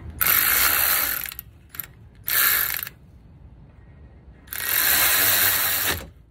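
Cordless electric ratchet spinning a brake caliper bolt in three runs, a long one, a short one and a longer one, while the new caliper is being bolted on.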